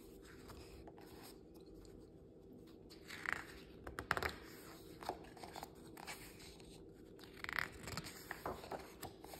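Pages of a picture book being turned by hand: faint paper swishes and rustles, in two bunches, about three to four seconds in and again near eight seconds, with a sharp click in the first.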